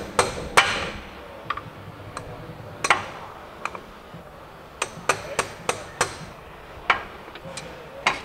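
Hammer striking a breaker bar held against a Saab 9-5's CV axle, tapping the axle's inner end out of the intermediate shaft: about fifteen sharp knocks at uneven intervals.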